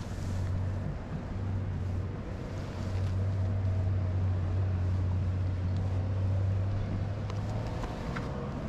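Steady low engine drone, with a few faint clicks near the end.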